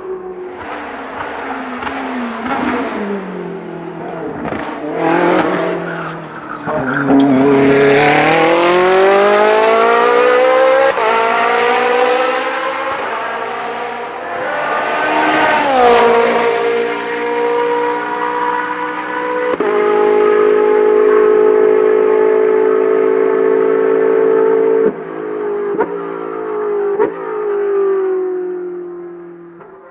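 Ferrari 458 GT3's naturally aspirated V8 race engine at high revs on track: quick swings in pitch at first, then long rising sweeps as it accelerates through the gears. It holds a steady high note for a few seconds, cuts off sharply, and winds down toward the end.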